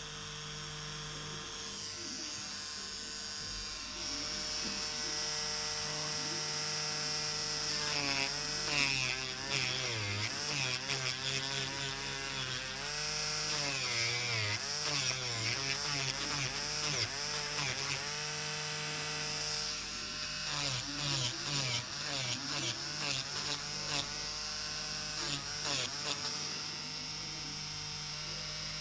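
Electric nail drill with a medium ceramic safety bit running on acrylic nails at the cuticle, a steady whine with a gritty filing hiss. Through the middle its pitch wavers and dips over and over as the bit is worked against the acrylic.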